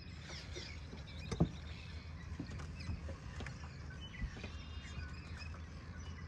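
Swallows twittering: many short, high chirps over a low steady rumble, with a single knock about a second and a half in.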